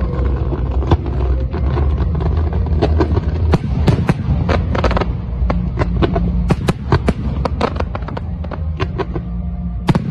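Fireworks display: a rapid run of sharp bangs and crackles from aerial shells, thickest in the middle and with a strong bang near the end, over steady music.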